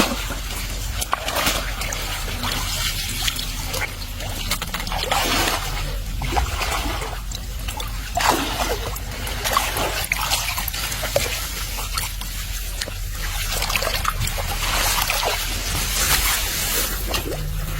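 Shallow water splashing and sloshing in irregular swishes, from someone wading and working by hand in the water.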